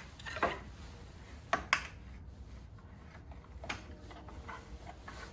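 Third brake light housing on a Jeep Wrangler JK tailgate being worked loose from its clips: a few sharp plastic clicks and knocks, two in quick succession about a second and a half in, over a low steady hum.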